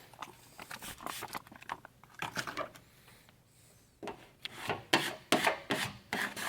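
Masked vinyl lettering being rubbed down onto the surface in short, uneven scraping strokes, pausing briefly past the middle and then coming harder and louder near the end.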